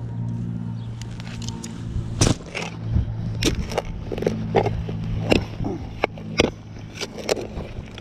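Irregular sharp knocks and scrapes from about two seconds in, as a pinpointer and a hand digger are handled and soil is worked at a dug hole while a metal-detecting target is recovered. A steady low engine hum runs underneath.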